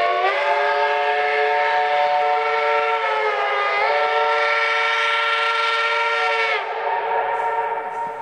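Narrow-gauge steam locomotive's whistle blowing one long blast of about seven seconds, several tones sounding at once. It bends up in pitch as it opens, sags briefly in the middle, then tails off more softly.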